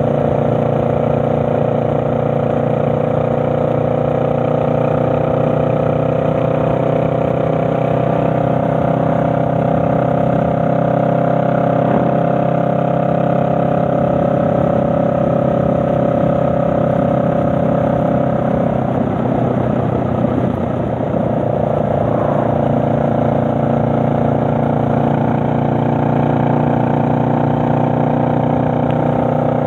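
Honda Rebel 500's parallel-twin engine running steadily while riding, recorded from a helmet chin mount. About twenty seconds in, the engine note breaks up and dips briefly, then settles back to a steady note.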